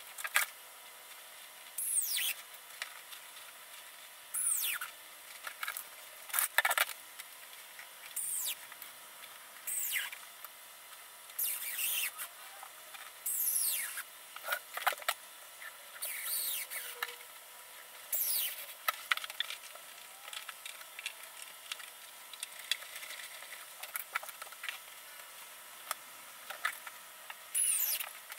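Small corded electric screwdriver running in a dozen or so short high whirring bursts, every second or two, each falling in pitch; a quieter stretch of faint ticks comes before a last burst near the end.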